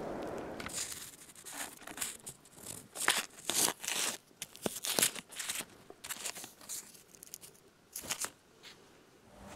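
Paper and cardboard rustling and scraping as fingers turn and handle a Tropic Exploder 4 firecracker tube on a stone countertop: a run of short, irregular crinkles and scrapes.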